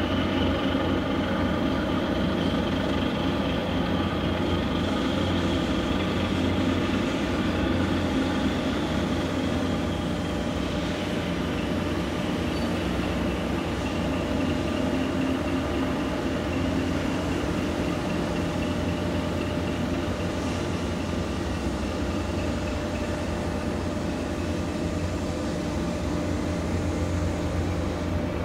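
Steady drone of a harbour tugboat's diesel engines working, a low hum under a faint whine that rises slightly and then settles back.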